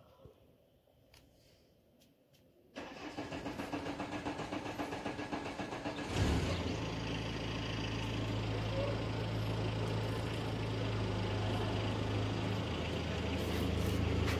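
A vehicle engine being started: the starter cranks with a fast pulsing churn for about three seconds, the engine catches about six seconds in and then runs at a steady idle.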